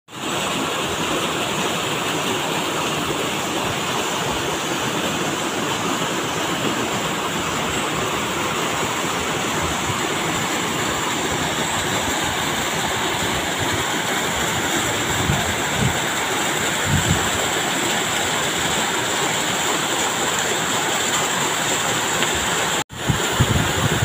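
Waterfall water cascading down a rocky chute into a pool: a steady, dense rush of water that cuts out for an instant near the end.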